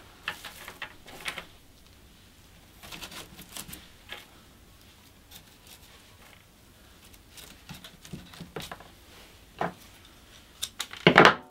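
Dry grapevine twigs and rose hip stems rustling and crackling in short bursts as sprigs are worked into a grapevine wreath. Near the end come a few louder clicks from secateurs cutting rose hip stems.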